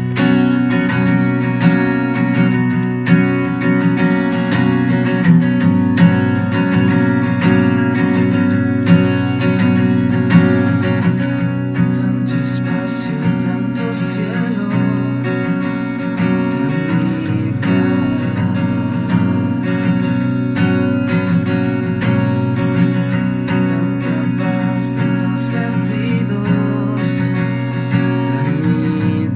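Acoustic guitar strummed steadily, with a man singing along at the microphone, as a live acoustic song.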